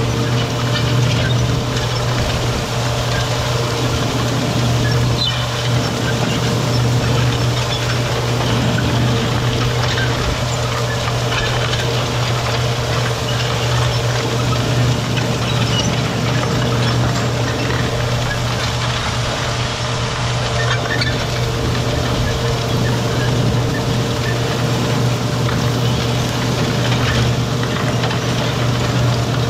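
John Deere tractor running steadily under load at field speed while pulling a planter, a constant low engine hum with a noisy rush over it.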